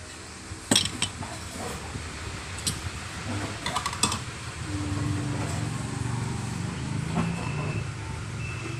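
A few sharp clicks and clinks of hands and dishes at a meal, over a low steady mechanical hum that grows louder about halfway through.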